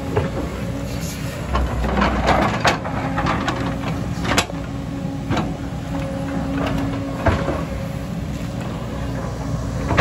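JCB crawler excavator's diesel engine running steadily while it works, with the clatter and knocks of rocks and soil spilling from and scraped by its steel bucket; the sharpest knock comes about four seconds in.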